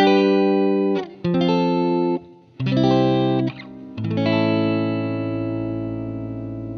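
Background music: four chords in turn, the last one held and slowly fading.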